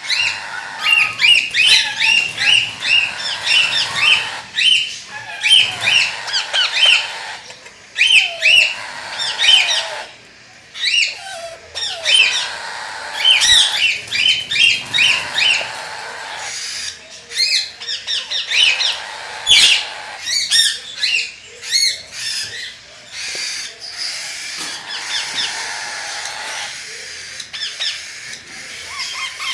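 Indian ringneck parakeets calling: quick runs of short, shrill squawks, repeated over and over with brief pauses.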